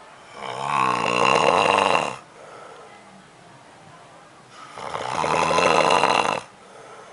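A man snoring loudly in his sleep: two long snores, each about two seconds, the second starting about four and a half seconds in. Each one builds up and then cuts off sharply.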